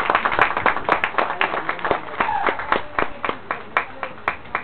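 A small audience clapping by hand: scattered, uneven claps, several a second.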